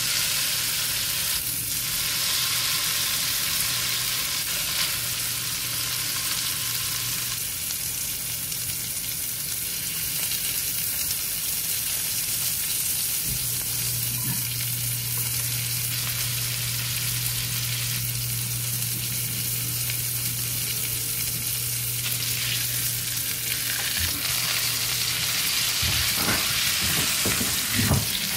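Steak searing in hot oil in a cast iron skillet, a steady sizzle. Near the end, metal tongs knock against the pan a few times as the steak is handled.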